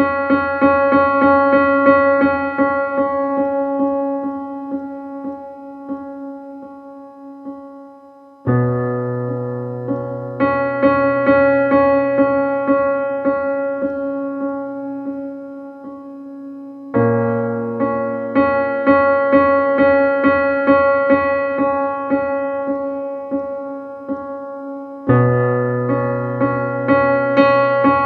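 Background music: a piano or electric piano playing repeated notes over sustained chords, in phrases that start afresh about every eight seconds.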